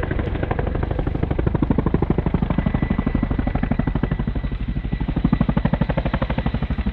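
Boeing Chinook tandem-rotor helicopter flying close by: its rotor blades beat in a fast, even pulse that swells and eases a little, over the steady rumble and a thin high whine of its engines.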